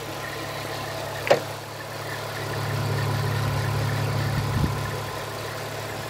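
Audi A6 2.7 biturbo's twin-turbo V6 idling steadily, heard at the open engine bay. It grows louder for a couple of seconds in the middle, and there is a short sharp click about a second in.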